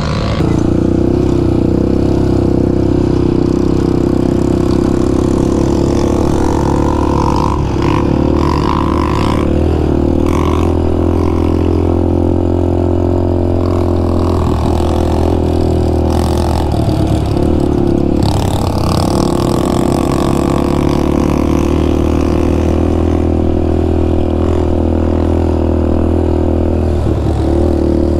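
Yamaha Raptor 700 ATV's single-cylinder four-stroke engine running at steady throttle on a trail ride, with brief drops in revs a few times, about halfway through and near the end.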